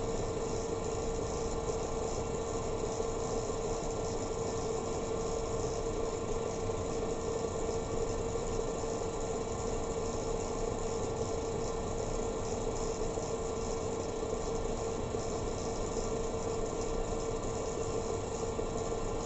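Electric pottery wheel running at a steady speed, its motor giving a constant hum with one steady mid-pitched tone.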